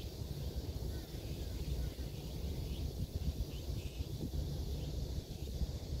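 Wind buffeting the microphone as a steady, gusty low rumble, with a few faint bird chirps in the middle.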